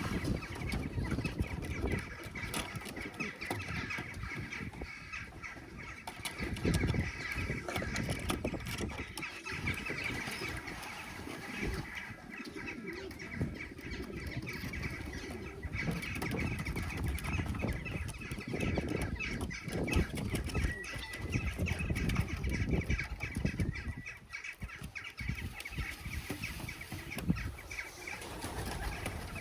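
Homing pigeons flapping their wings and shuffling about in the loft, in irregular bursts, with bird calls throughout.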